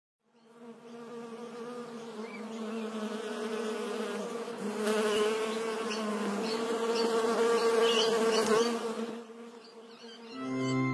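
Insect-buzz sound effect of a bee flying: a buzzing hum that wavers slightly in pitch and grows louder, then fades near the end, when a lower steady tone comes in.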